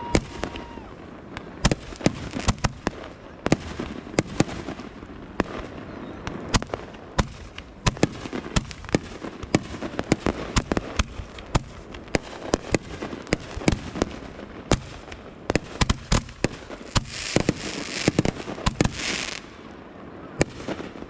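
Fireworks going off: a rapid, irregular string of sharp bangs and pops, with a loud hissing crackle for a couple of seconds near the end.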